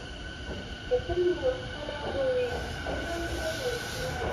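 JR East E217 series electric train pulling out of an underground platform, its running noise growing about halfway through as it gathers speed. A low rumble and a steady high whine run under it.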